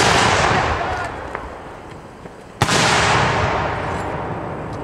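Aerial firework shells going off: a loud report just before the start and another sharp report about two and a half seconds in, each trailing off over a couple of seconds.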